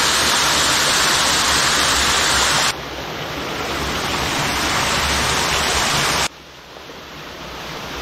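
Small waterfall cascading over boulders: a steady rush of falling and splashing water. The rush drops suddenly twice, about a third of the way in and again near the end, and each time swells back up.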